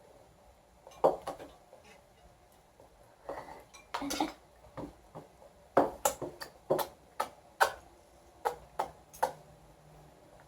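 A spoon clinking and scraping against a bowl in a string of about a dozen irregular taps.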